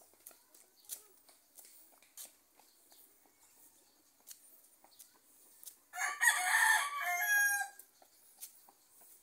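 A rooster crowing once, loud, starting about six seconds in and lasting about two seconds. Before it, faint footsteps tap on a concrete road.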